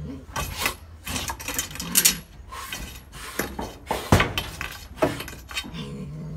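Cornered cat hissing and spitting in a rapid series of sharp, noisy bursts, with a low growl near the end.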